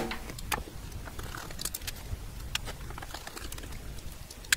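Scattered small clicks and taps of a screwdriver working at a wiring connector block as the printer's main drive is disconnected, with a sharper click near the end.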